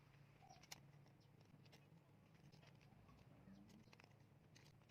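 Near silence: faint room tone with a few scattered faint small clicks, one a little louder about a second in.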